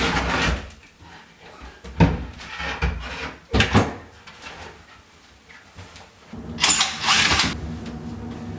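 Wooden knocks and scrapes as plywood shelf boards are lifted and pulled out of a small closet, with a louder scraping slide about seven seconds in. A steady low hum starts just before that slide and keeps going.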